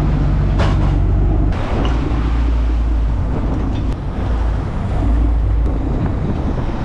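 Boat engine running steadily while wind buffets the microphone and the sea rushes along the hull; the low wind rumble grows heavier about a second and a half in.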